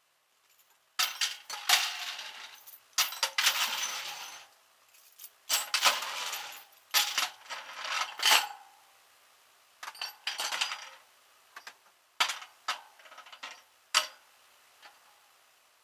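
Loose metal clinking and rattling in irregular bursts of sharp clicks, as metal parts are handled.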